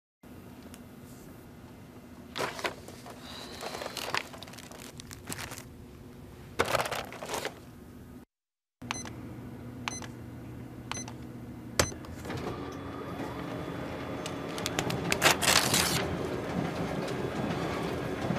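Office photocopier in use: clicks of buttons being pressed and a few short keypad beeps, then the machine running with a steady hum and louder paper-feeding noise about two-thirds of the way through.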